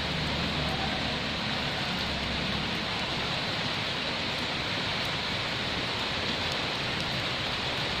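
Heavy rain falling steadily, an even hiss with no let-up.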